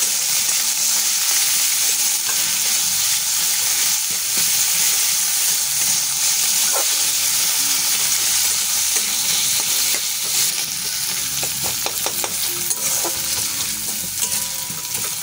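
Chopped carrot, onion, garlic and ginger sizzling steadily in hot vegetable oil in a steel wok, stirred with a spatula. The spatula scrapes and clicks against the metal now and then, more often in the second half.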